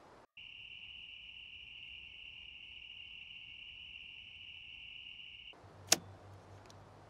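Insects trilling steadily, high-pitched, stopping suddenly after about five seconds; then one sharp click, the loudest sound, near the end.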